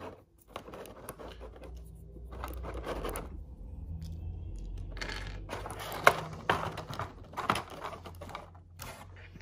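Small plastic action-figure accessories, spare hands and blasters, being picked out of a plastic blister tray and set down: irregular light clicks, rattles and scrapes, with one sharp click about six seconds in.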